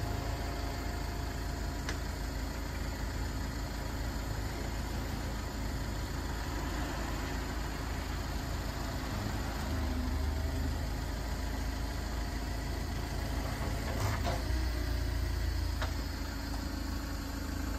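The Iveco Daily 55S18W's diesel engine idling steadily, driving the hydraulics of the Fassi M30 loader crane while its boom telescopes out. The engine sound swells briefly about ten seconds in and again a few seconds before the end, with a couple of faint clicks.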